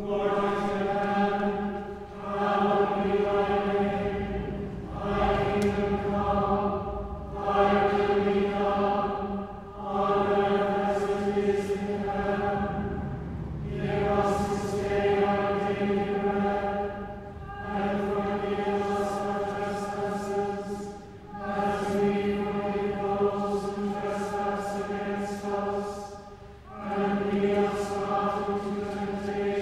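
A church choir singing sung preces and responses, chanting on steady held notes in short phrases of a few seconds each, with brief pauses between them.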